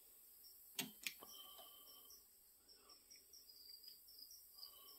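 Near silence. About a second in come two light clicks, a quarter second apart, as digital calipers are set against the chainsaw cylinder's flange. Faint, regular cricket chirping runs behind.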